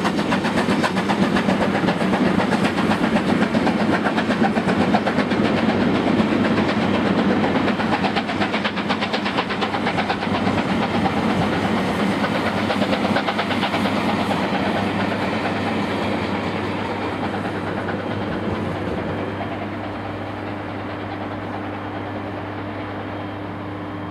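A steam-hauled passenger train behind BR Standard Class 7 'Britannia' locomotive 70013 running past, its wheels clattering rapidly over the rail joints. The sound fades steadily through the second half as the train draws away.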